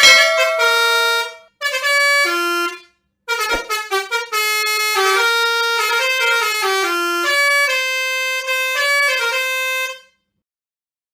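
Indonesian 'telolet' bus horn, a set of air-horn trumpets, playing quick melodies of stepped notes. There are two short phrases and then a long one of about six seconds, which cuts off suddenly near the end.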